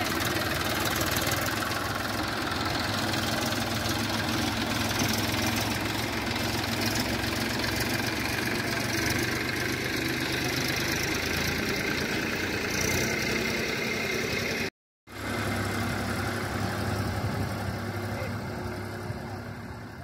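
Massey Ferguson 7250 DI tractor's diesel engine running steadily, powering a chickpea thresher. The sound breaks off for a moment about 15 seconds in and fades away at the end.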